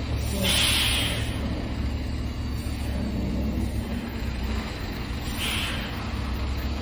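Diesel engine of a loaded semi-truck running steadily at low speed as it inches through a tight turn, with two short air-brake hisses: a louder one about half a second in and another about five and a half seconds in.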